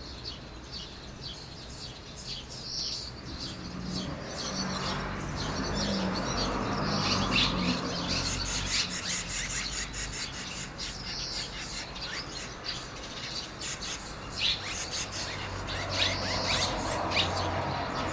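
Red-rumped swallows chirping at the nest: many short, high chirps, busiest about a third of the way in and again near the end, over a steady rushing noise.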